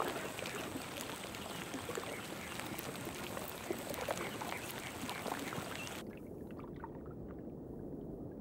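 Water trickling and lapping, with many faint small ticks. About six seconds in the sound turns suddenly muffled as its hiss drops away.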